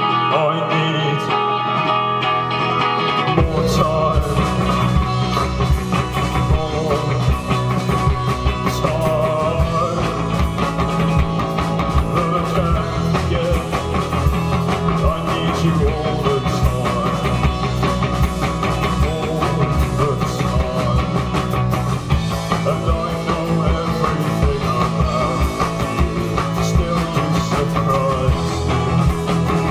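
Live rock band playing an instrumental passage on guitars, bass and drums. A lighter guitar passage opens it, and the bass and drums come in about three seconds in.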